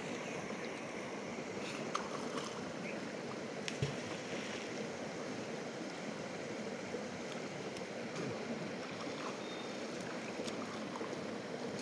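River water flowing and rushing steadily, with a few faint ticks and small splashes.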